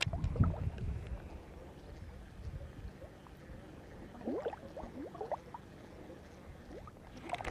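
Water sloshing and gurgling around an angler wading through shallow lake water, heaviest in the first second. A few faint short rising squeaks come about four to five seconds in.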